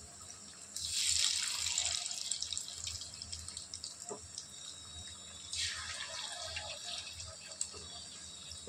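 Battered chicken pakoda pieces deep-frying in hot oil in a kadai: a steady crackling sizzle that flares up loudly twice, about a second in and again past five seconds, as fresh pieces go into the oil, each flare fading away over a second or two.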